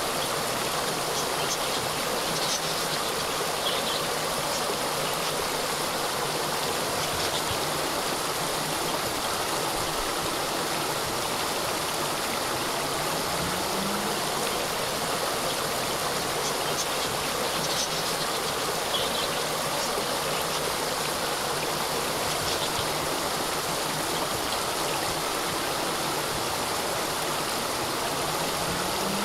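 Small waterfall cascading, a steady rush and trickle of falling water, with a few faint short high chirps over it.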